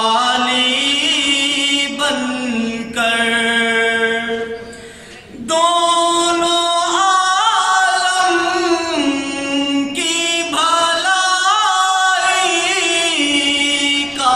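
A young man reciting an Urdu naat, a devotional poem in praise of the Prophet, unaccompanied. He sings in long melodic phrases with ornamented, wavering notes, pausing for breath about five seconds in.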